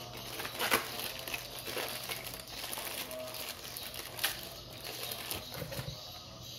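Clear plastic packaging bag crinkling as it is handled, with a few sharper crackles, the loudest about a second in and again after about four seconds.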